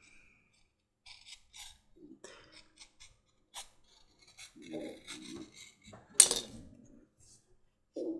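Glued layers of a leather dog collar being trimmed with a cutting tool: short, irregular scraping cuts, with one sharper, louder snap about six seconds in.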